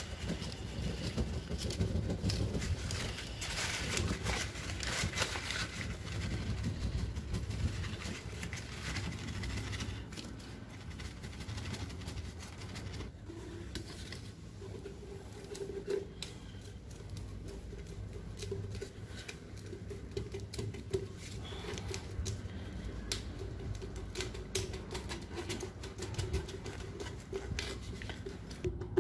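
Burning kraft paper crackling under the end of a PVC pipe, heating it soft enough to form a socket, with paper crinkling in the hand. Later the crackle gives way to fainter scattered clicks and rubbing as the softened pipe end is pressed over a plastic plug.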